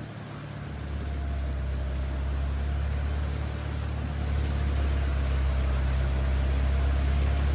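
Force Gurkha SUV's diesel engine running steadily as the vehicle wades slowly through deep floodwater, heard from inside the cabin as a low drone under a wash of water noise. It grows a little louder about a second in.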